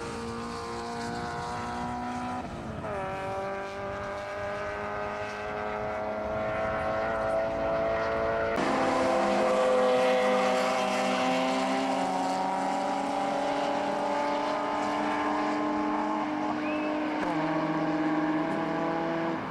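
Racing car engines under hard acceleration on a circuit. The engine note climbs steadily, breaks off abruptly about three and eight and a half seconds in, and another engine joins lower down near the end.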